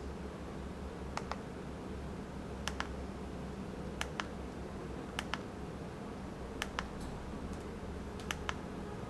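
Buttons on a wall remote for a smart LED light being pressed repeatedly to dim it: about six presses, each a quick double click, spaced a second or so apart.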